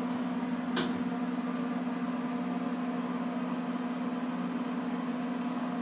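Steady low machine hum with a clear droning tone, and one short click or rustle about a second in.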